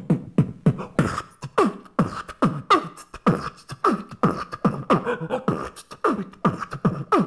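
A man beatboxing a hip-hop beat into cupped hands: deep kick-drum booms that drop in pitch about twice a second, with sharp snare-like clicks and hi-hat ticks between them at a steady tempo.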